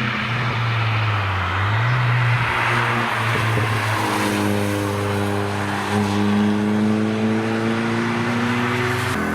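Car engine accelerating past on a wet track, its pitch climbing steadily through the gears, over a hiss of tyres on wet tarmac. The sound cuts off suddenly near the end.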